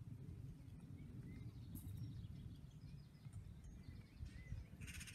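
Outdoor ambience: a low rumble of wind on the microphone with a few faint bird chirps. Near the end there is a brief, rapid rasping sound.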